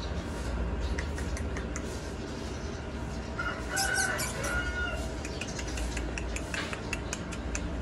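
A rooster crows once, a call of a few parts about three to five seconds in, over a steady low hum, with scattered light clicks after it.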